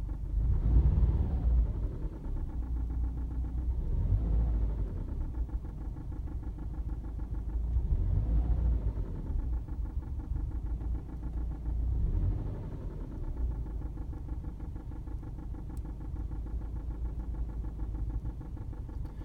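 Subaru flat-four engine idling and revved in short blips about every four seconds, heard from inside the cabin. The ticking knock it makes at idle seems to fade when the revs rise.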